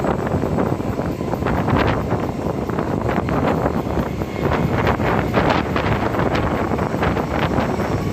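Wind buffeting a microphone held out of a moving train's window, coming in irregular gusts over the steady rumble of the train running along the track.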